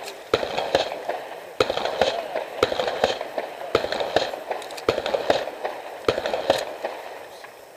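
Shotgun fire, about seven shots roughly a second apart, each followed by a rolling echo that rings on for about a second.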